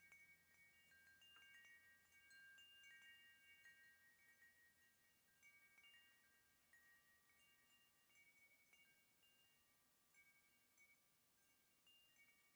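Wind chime ringing faintly: several different notes struck at irregular moments, each ringing on and overlapping the others, growing fainter toward the end.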